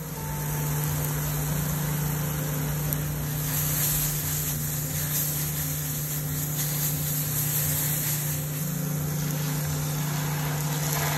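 Chilli spice paste sizzling in a frying pan as it is stirred with a spatula after dry ground spices go in, a steady hiss over a constant low hum.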